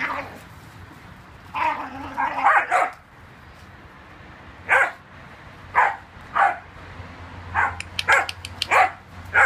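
A whippet and an Ibizan hound barking in rough play: a dense cluster of barks about two seconds in, then single sharp barks roughly once a second, with a quick run of barks near the end.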